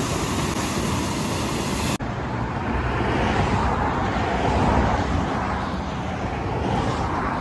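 Whitewater rushing and churning down an outflow channel cut through beach sand: a steady roar, cut about two seconds in to a more distant version of the same rush.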